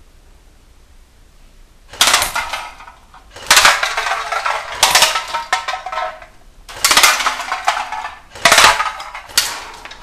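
Aluminium drink cans hit by bursts from a Cyma CM052 airsoft RPK, clattering as they are knocked over and roll on a tiled floor. The first couple of seconds are quiet. Then come five sharp, rattling clatters about a second and a half apart.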